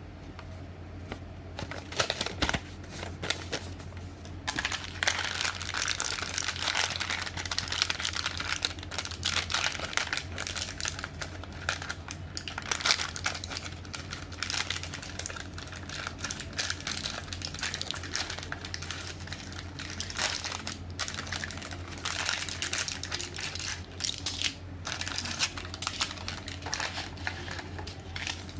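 Crinkling and crackling of medicine packaging being handled and opened, in irregular spells with short pauses, over a steady low hum.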